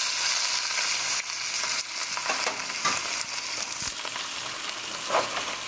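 Beef pot roast sizzling as it sears in hot oil in a frying pan, browning on all sides, a steady hiss with a few short clicks.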